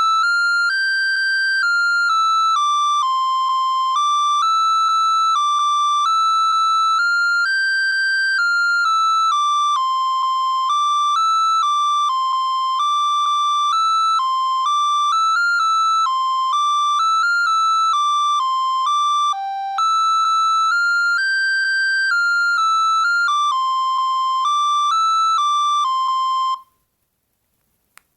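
A Bird S296 mobile phone playing one of its built-in ringtones: a single-voice electronic melody of short stepped notes that stops abruptly about 26 seconds in.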